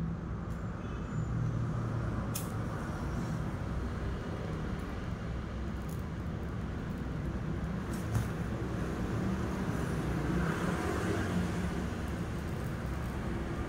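A steady low, engine-like rumble, with a few sharp light clicks and a brief soft hiss near the end.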